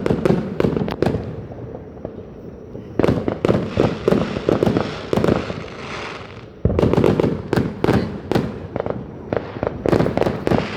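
Fireworks going off in rapid, overlapping volleys of sharp cracks and pops. There is a lull about two seconds in, then a sudden, louder barrage about two-thirds of the way through.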